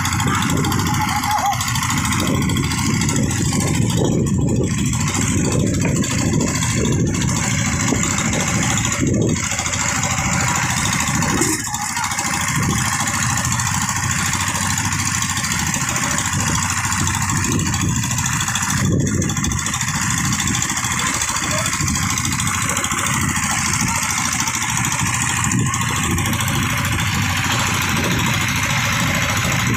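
A fishing boat's engine running steadily, a constant even drone.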